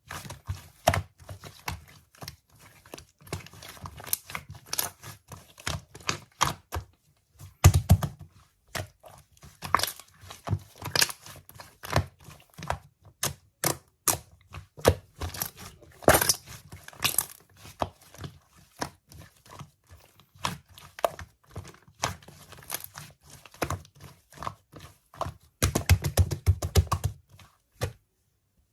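Irregular taps, clicks and rustling, as of hands handling small objects and crinkly material, with a busier run of taps near the end.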